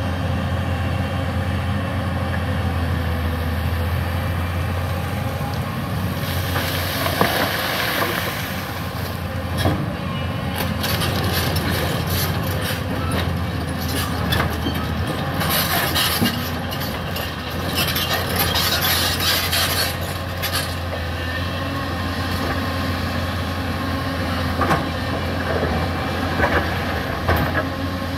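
Hyundai 220-9SH crawler excavator's diesel engine running steadily under load as it digs sand and stones, with two stretches of louder hiss and clatter, about a quarter of the way in and again around the middle, and scattered knocks of rock.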